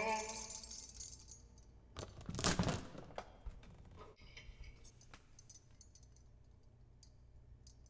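The last sung note and its accompaniment fade out. About two and a half seconds in comes a single bright metallic jingle, then a few faint clicks.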